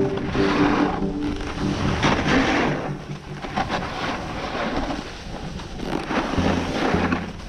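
Snowboard edges scraping and chattering over hard-packed, icy snow, with wind rushing over the helmet camera's microphone. Faint background music with low bass notes sits underneath.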